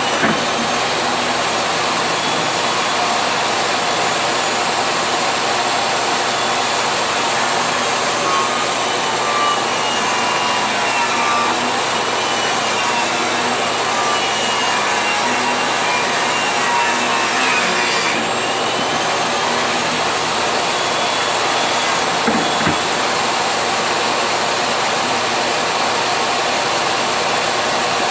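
A woodworking power tool running steadily on wood, a continuous even noise with faint wavering whine, and a couple of small knocks near the end.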